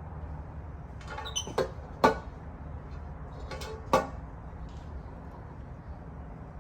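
A few short squeaky calls about a second in, then two sharp knocks about two seconds apart, over a steady low hum.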